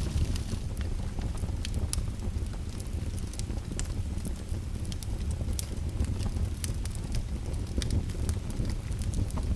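Fire crackling: irregular sharp pops over a steady low rumble.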